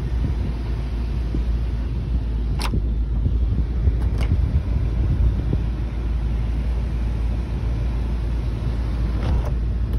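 Steady low rumble inside the cabin of a 1993 Cadillac Seville STS while its power moonroof is worked, with two sharp clicks about two and a half and four seconds in.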